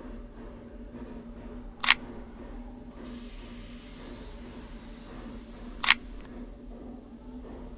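Two camera shutter clicks about four seconds apart, over a steady low hum, with a hiss rising in the middle and dying away after the second click.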